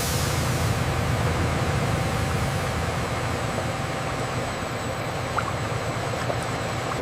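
Steady drone of food-processing machinery, a constant noisy hum with a faint steady whine, and a small tick about five seconds in.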